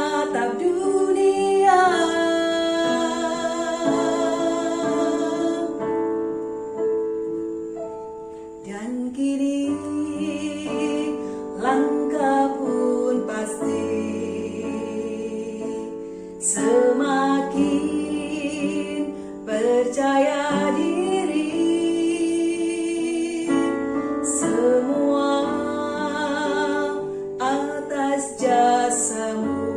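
Choir of mainly female voices singing in parts, holding long chords with vibrato between phrases, recorded live without a microphone.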